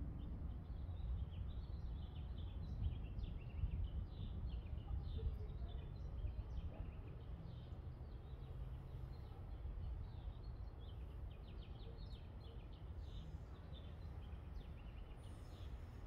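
Birds chirping over and over in many short high chirps, over a steady low outdoor rumble.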